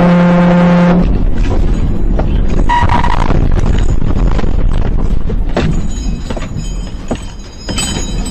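Semi truck's air horn blasting for about a second, over the loud rumble of the truck's engine and road noise in the cab. A shorter, higher tone follows about three seconds in, and the rumble eases off in the last couple of seconds.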